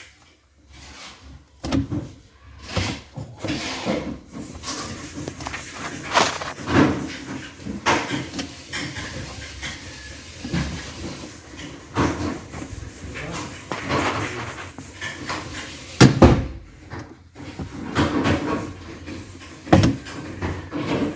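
Irregular knocks, clunks and clatter of hard objects being handled, with a sharp, loud knock about sixteen seconds in.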